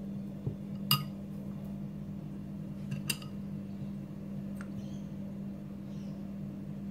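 Metal spoon clinking as canned beans are scooped from the tin into a ceramic bowl of noodles: two sharp clinks, about a second in and about three seconds in, with a few fainter taps. A steady low hum runs underneath.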